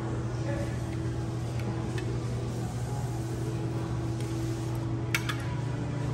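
A steady low machine hum fills the background. A few light clicks come from a spoon and chopsticks knocking against a ceramic bowl, the sharpest about five seconds in.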